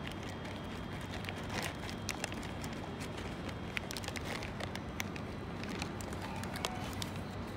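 Shin-Keisei 8800 series electric train pulling slowly out of the station, a steady running rumble with sharp, irregular clicks and clacks from its wheels over the rail joints.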